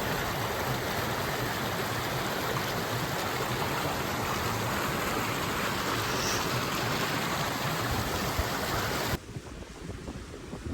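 Steady rush of a mountain stream's flowing water. About nine seconds in it cuts off suddenly to quieter, gusty wind on the microphone.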